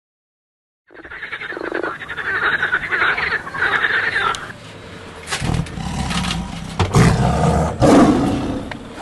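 Animal calls: a pulsing, croaking run of calls, then louder, deeper calls in the second half.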